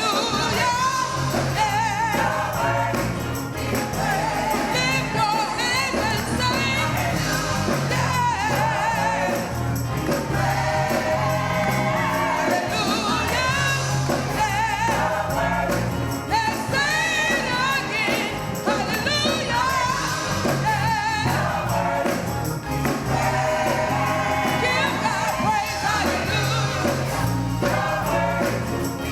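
Gospel choir singing with instrumental accompaniment, wavering voices over a steady bass line.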